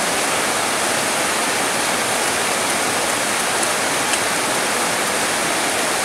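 Rain pouring down steadily: a dense, even hiss with no let-up.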